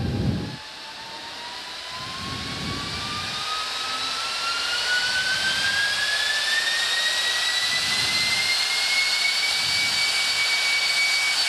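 Pair of electric ducted fans on a jet-boot leg harness spooling up: a loud whine that rises steadily in pitch and volume for about ten seconds, then holds at full speed near the end.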